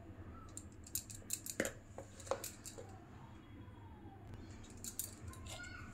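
Faint scattered clicks and taps of a steel spoon and container being handled as cornflour is spooned into a mixing bowl, mostly in the first couple of seconds and again near the end, over a low steady hum.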